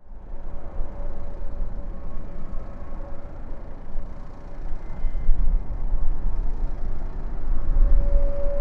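Jet airliner engines: a low rumble with a steady whine-like tone, starting abruptly and growing stronger near the end.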